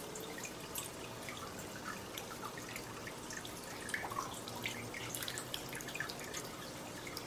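Water dripping and trickling: many small drops plinking at irregular intervals over a faint steady hiss.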